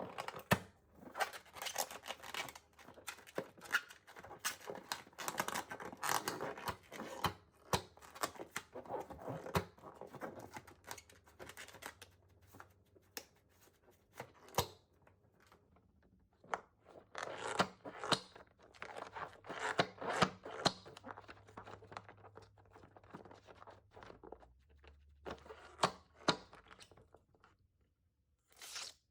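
Slime being worked by hand: irregular sticky crackles, clicks and squelches that come in bursts, with a quieter stretch around the middle.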